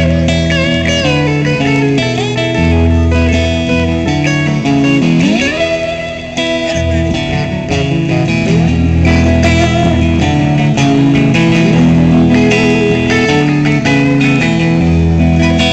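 Two amplified electric guitars playing an instrumental passage together, with held low notes and higher picked lines. About five seconds in, a note glides upward.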